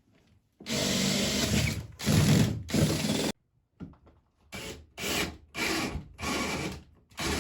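Power drill boring into wood: two long runs, then a pause and a string of short bursts about two a second as the bit is worked in and out. The bit cuts poorly, a cheap kit bit that the driller says needs replacing.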